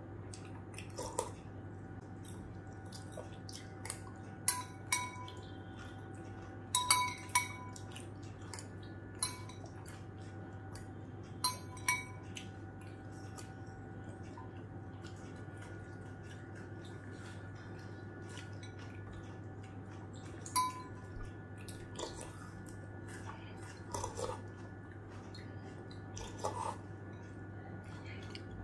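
Metal spoon clinking and scraping against a glass bowl of soup, with sips from the spoon. The clinks come irregularly, some with a short glassy ring, with a quieter stretch in the middle.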